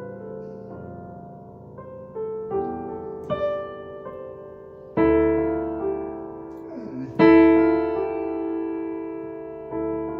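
Electronic keyboard played with a piano sound: slow, sustained chords that ring on, with two louder chords struck about five and seven seconds in.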